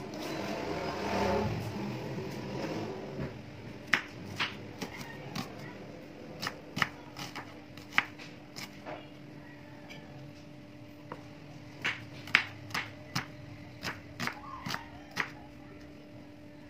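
Kitchen knife slicing a red onion on a bamboo cutting board: sharp knocks of the blade against the board, in three runs of several cuts each. A faint rustle of handling comes before the first cut, and a faint steady hum lies underneath.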